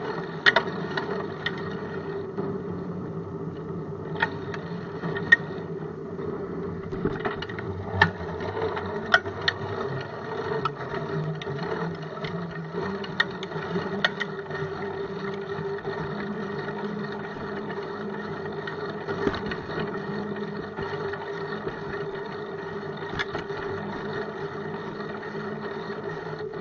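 Bicycle riding noise picked up by a camera fixed to the bike: a steady mechanical hum with scattered sharp knocks and rattles as the wheels go over bumps and cracks in the pavement.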